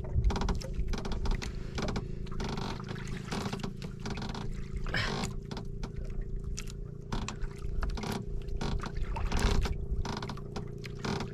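A steady low mechanical hum under wind rumble, with irregular clicks and scrapes from hands working a fishing hook and line out of a red grouper's mouth.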